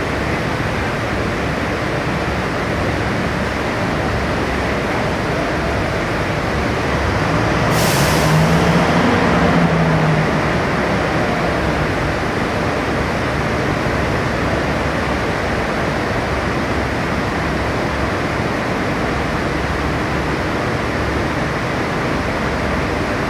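Crane's engine running steadily, with a short sharp hiss about eight seconds in, like an air release, and a few seconds of louder running with a low hum right after.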